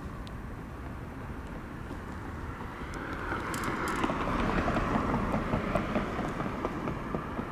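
Wind buffeting the microphone over a steady rumble like road traffic. A mid-pitched noise swells about three seconds in, with a quick run of small ticks over the following few seconds.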